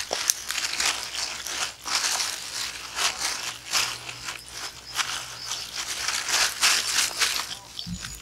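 Rapid, irregular crinkling and crackling of plastic packaging being handled and worked open, with a short low knock near the end.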